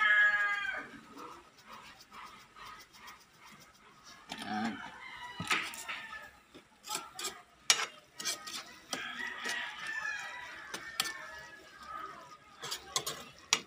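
A rooster crowing twice, once right at the start and again about nine seconds in. Between and over the crows, a metal ladle clinks and scrapes against an aluminium wok as shrimp paste is stirred.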